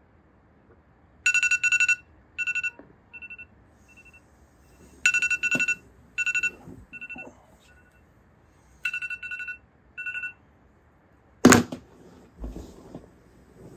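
Smartphone alarm beeping. It sounds in three rounds of high electronic beeps, each starting loud and trailing off into fainter repeats. After the beeping stops, one sharp thump comes near the end.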